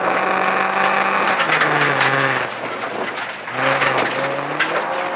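Toyota RAV4 rally car's engine pulling hard, then dropping in revs about a second and a half in as the driver lifts for a corner. It picks up and climbs in pitch again near the end as the car accelerates out.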